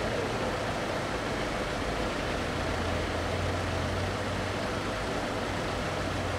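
Steady vehicle and traffic noise at a closed level crossing, with a low engine hum that sets in about two seconds in.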